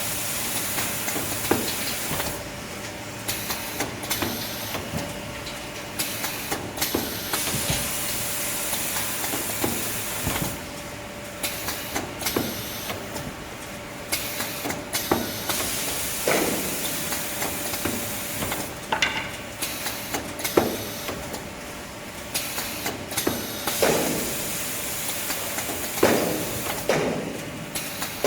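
Industrial tissue-log bandsaw slitting machine running. A steady hiss carries a thin steady hum, with short knocks and swishes every second or two as the machine cycles through its cuts.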